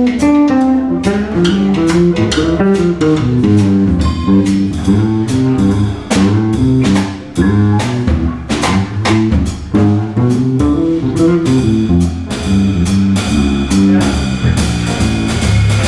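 Live jazz: an electric bass plays quick, melodic lines over a drum kit keeping time with frequent cymbal and drum strokes.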